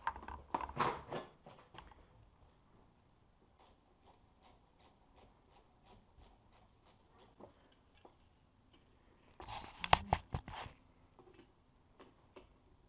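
Hand tools working on the engine: rattling clicks at the start, then a run of evenly spaced light ticks, about three a second, and a louder burst of metallic clatter about ten seconds in.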